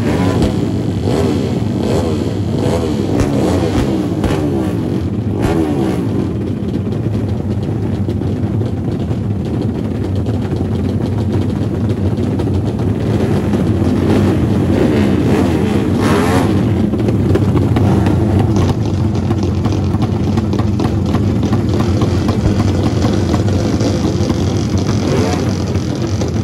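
Several drag-racing motorcycle engines running together, revved up and down over and over, without a break.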